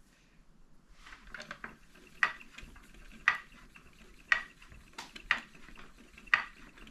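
Spinning wheel being worked to spin alpaca roving into thread, giving a sharp click about once a second with lighter ticks between.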